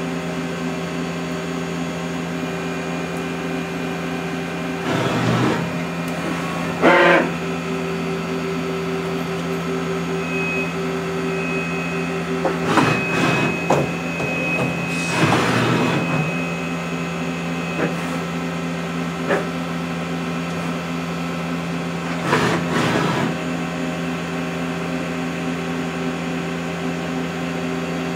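Mazak SQR-200 CNC lathe running a machining program: a steady machine hum with several constant tones, broken by about five short noisy surges, with a high whine through the middle for several seconds.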